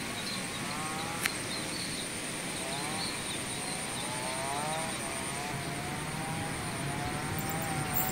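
A faint, wavering hum whose pitch drifts slowly up and down, over steady outdoor background noise, with a single sharp click about a second in.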